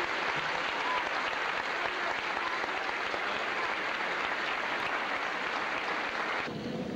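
Audience applauding steadily, cut off abruptly near the end, leaving a quieter low rumble.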